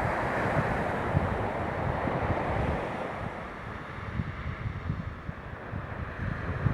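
Fireworks display heard as a dense, continuous rumble of many overlapping low thuds and crackle, with wind noise on the microphone.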